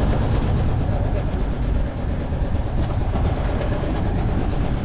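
A fishing boat's engine running steadily: a loud, even low rumble.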